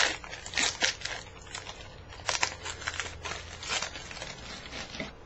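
Foil wrapper of a baseball card pack being torn open and crumpled, in uneven bursts of crinkling that die down near the end.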